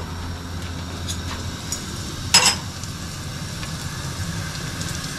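Chopped garlic sizzling quietly in melted butter in a stainless steel pot, over a steady low hum, with a single sharp knock a little over two seconds in.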